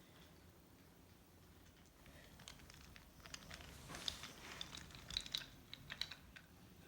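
Faint, scattered light clicks and taps over quiet room tone. They get busier about two and a half seconds in and thin out near the end.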